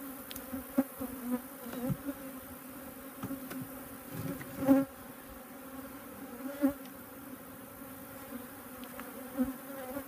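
Many honeybees buzzing around an opened hive, a steady hum. A few short knocks of the wooden hive boxes and frames being handled break through it, the loudest about halfway through.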